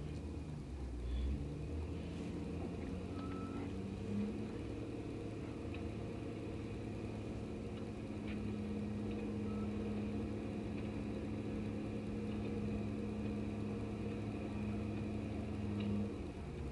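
Diesel engine of a motor grader running steadily as it blades packed ice and snow off a street, heard from inside the house. A steady low hum joins the engine rumble about four seconds in and stops shortly before the end.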